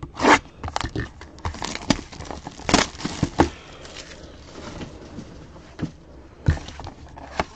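A sealed box of trading cards being opened by hand: irregular crackling, crinkling and tearing of its wrapping, with scrapes of the packaging being handled.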